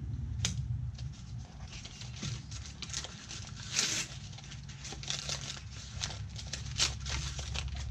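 Tissue paper crinkling and rustling in irregular bursts as it is unfolded and pulled back inside a cardboard box, over a low steady hum.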